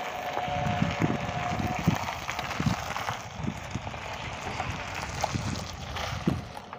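Wind buffeting the microphone: a steady rushing noise with irregular low gusts and thumps.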